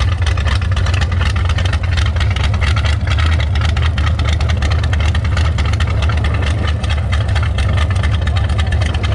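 1933 hot rod roadster's engine running through open headers as the car rolls along at low speed: a loud, steady exhaust rumble of rapid firing pulses.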